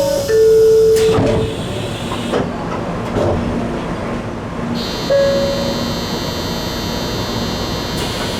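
N700A Shinkansen door chime, two alternating notes, ending about a second and a half in, with a knock about a second in as the door shuts. Then the train's steady running sound with a faint low tone repeating on and off, and a high steady whine from about five to eight seconds in.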